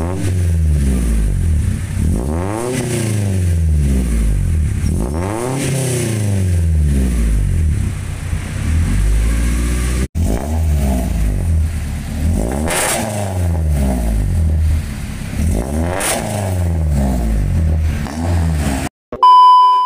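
1997 Honda Civic Ferio's four-cylinder engine revved repeatedly through a full aftermarket exhaust (header, resonator, rear muffler), the revs climbing and dropping back about four times. The first revs are with the resonator and muffler before they were replaced, a setup whose note was still too round rather than crisp. The sound cuts out briefly about halfway, the revving resumes, and a loud short steady tone sounds near the end.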